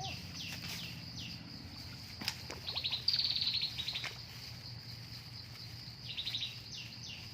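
High-pitched animal chirping: short rapid trills and quick downward-sweeping chirps, repeated in clusters, over a low steady hum.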